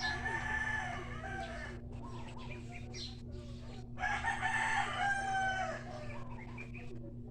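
A rooster crowing twice: one crow right at the start and a second about four seconds in, over a steady low hum.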